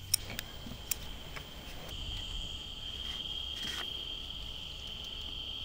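Insects trilling in a steady, unbroken high tone that grows a little louder about two seconds in, with a few sharp clicks in the first second and a half and a low rumble underneath.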